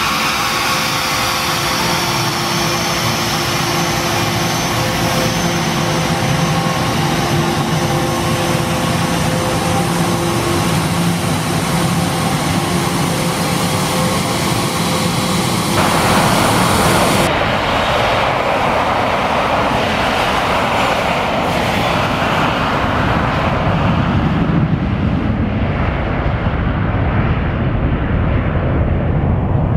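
Bombardier Global business jet taxiing on its two jet engines at low power: a steady jet whine with high whistling tones. About halfway through it turns to a louder, rougher rush, and the high whistle fades away over the last few seconds.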